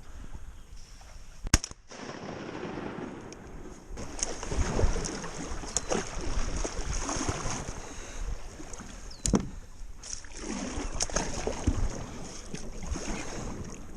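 A single sharp shotgun blast about one and a half seconds in. After it comes a long stretch of uneven water sloshing and movement noise, with a few smaller knocks, one of them sharp near the nine-second mark.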